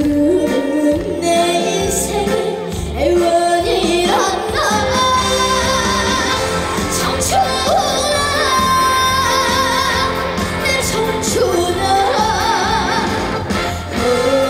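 A female vocalist sings a Korean trot song with heavy vibrato over a loud backing track.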